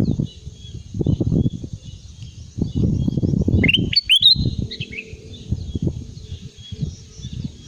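Kutilang emas (golden bulbul) calling: faint high twittering throughout and a loud cluster of quick rising whistled notes about halfway through. Bursts of low rumbling noise come and go underneath.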